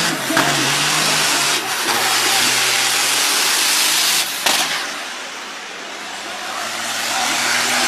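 Truck engines running loudly under a heavy rushing noise, with sharp cracks about a second and a half in and again about four seconds in. The noise dips about five seconds in, then builds back up.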